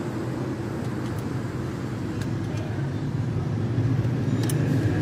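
Steady low hum of a motor vehicle engine running, growing louder about four seconds in, with a few short clicks near the end.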